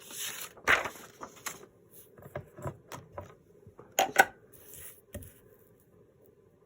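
Paper being handled: rustling and crinkling as paper sheets and book pages are shuffled and folded, with scattered taps on the table. Two sharp clicks about four seconds in are the loudest, and the handling stops about a second later.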